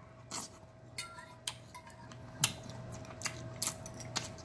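Eating with a metal fork from a ceramic plate: a scatter of small irregular clicks and clinks as the fork meets the plate and the mouth, over a faint steady hum.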